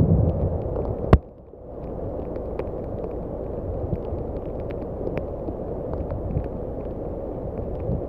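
Heavy rain on a flooded road: a steady wash of rain and moving water with many small drops ticking, heard through a wet microphone. In the first second a louder low rumble ends with a sharp click, and the sound drops to the steady rain.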